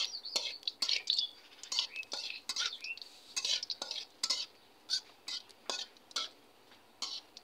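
Metal spatula scraping and clinking against a metal wok, stirring dried red chillies frying in mustard oil. The strokes come irregularly and grow sparser toward the end.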